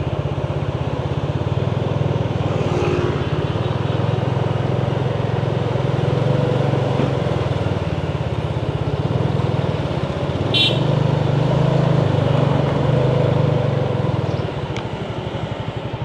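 Motor vehicle engine running steadily on the move, a low pulsing hum with road noise. A short high-pitched beep sounds about ten and a half seconds in.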